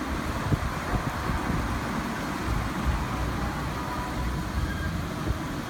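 A motor vehicle running, with a steady low rumble and road traffic noise.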